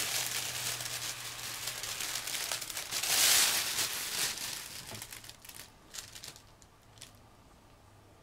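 Plastic vaporizer balloon bag crinkling and rustling as it is squeezed empty during a long inhale through its mouthpiece, loudest about three seconds in, then dying away to a few faint clicks.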